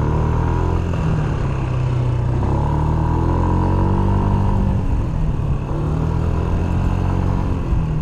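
Yamaha Smax 155 scooter's single-cylinder four-stroke engine running at low speed, its pitch rising and falling gently a few times.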